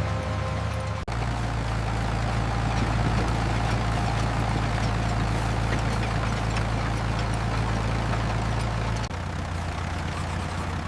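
An engine running steadily at idle, a low hum that changes abruptly to a different tone about a second in and again near the end.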